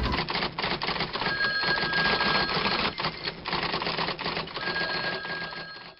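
Rapid, dense mechanical clicking and clattering, with two brief held tones, one about a second in and one near the end.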